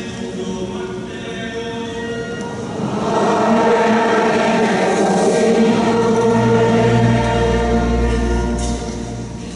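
A church choir singing the acclamation before the Gospel. The singing swells about three seconds in, a deep bass note is held under it from about six seconds, and it fades out near the end.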